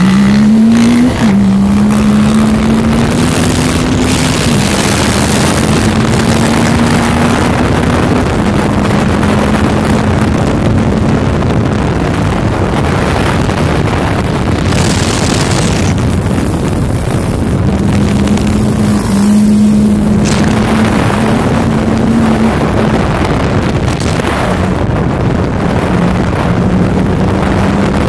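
Yamaha YXZ1000 side-by-side's three-cylinder engine at high revs under hard acceleration, its pitch climbing and dropping back at a gear shift twice in the first few seconds, then held high. For a stretch in the middle the engine fades under wind rushing over the microphone.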